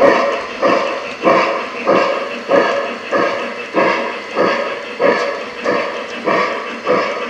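Lionel Polar Express model steam locomotive's sound system chuffing at a steady rhythm, about one and a half chuffs a second, as the train runs.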